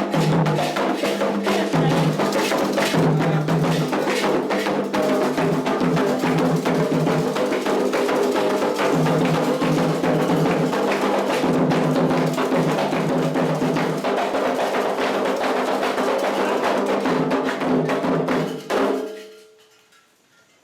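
Candomblé ritual percussion: atabaque hand drums with a struck bell keeping a fast, steady rhythm, which stops abruptly near the end.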